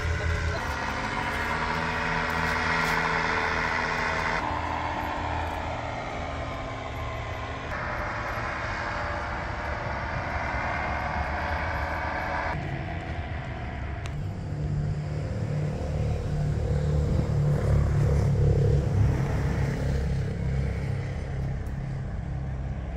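Steady engine hum under outdoor background noise, its character changing abruptly several times and growing stronger in the second half.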